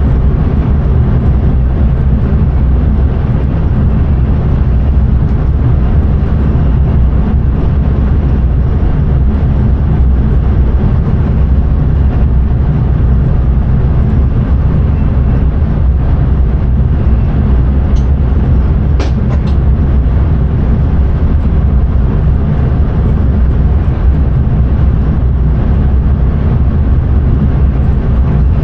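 Steady, loud rumble of a passenger train running at speed, heard from inside the driver's cab. A few sharp clicks come about two-thirds of the way through.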